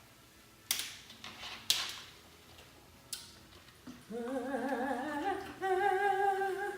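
A few sharp clicks and knocks, then a person humming or singing a held note with a wavering vibrato, stepping up to a higher, louder note near the end.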